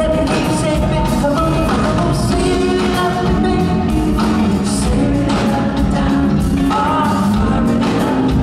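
Live R&B song: a male lead vocal sung into a handheld microphone over a full band of electric bass, electric guitar, keyboards and drums.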